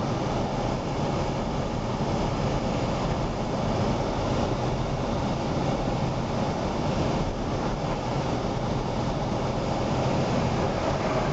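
Steady engine and tyre noise of a moving car, heard from inside the cabin, with a constant low hum.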